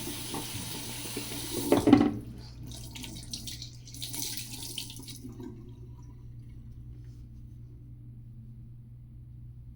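Sink tap running, shut off about two seconds in, followed by a short splash of water a couple of seconds later; after that only a faint steady hum.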